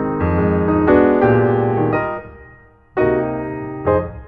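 Background music of held chords that fade almost to nothing about two seconds in, with a new chord struck about a second later.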